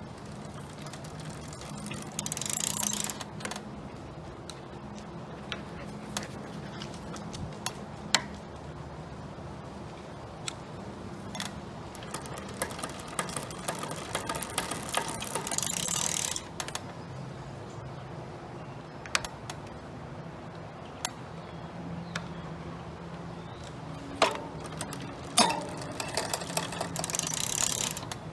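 Bicycle drivetrain worked by hand: the chain runs over the rear cassette and derailleur pulleys in three short spells of pedaling, with scattered sharp clicks between them.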